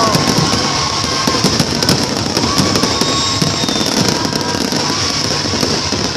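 Fireworks display: a dense, continuous crackling of many small bursts, with whistling trails near the start.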